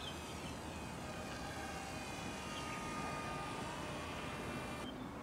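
Eaglet V2 RC seaplane's small brushed electric motor and propeller whining in flight, a steady high tone with several overtones. The whine stops abruptly near the end.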